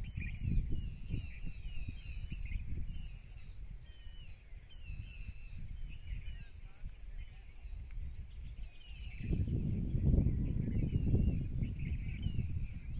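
Many small birds chirping, with quick repeated chirps overlapping throughout. Underneath runs a low rumbling noise that grows louder about nine seconds in.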